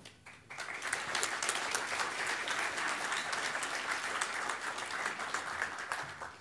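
Audience applauding: a dense patter of many hands clapping, starting about half a second in and stopping shortly before the end.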